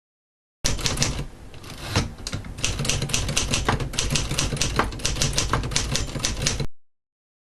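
1951 Remington Quiet-Riter manual typewriter being typed on: its keys strike in a quick, uneven run of clicks, about five a second, sparser for a moment near the start. The sound begins and ends abruptly.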